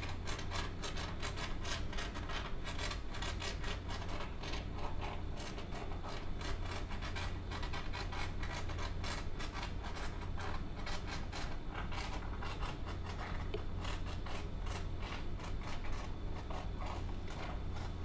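Can of expanding foam being dispensed through its straw nozzle: a dense, irregular crackling sputter as the can, running nearly empty, spits out foam. A steady low hum sits underneath.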